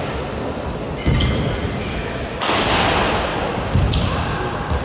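Badminton rally: sharp racket hits on the shuttlecock about once a second, with players' feet thudding on the court and shoes squeaking.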